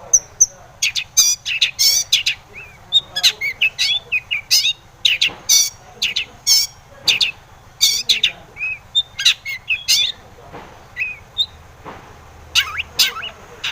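Long-tailed shrike (cendet) singing hard: a fast, varied run of sharp high chirps and short sweeping notes in quick bursts, with short gaps between.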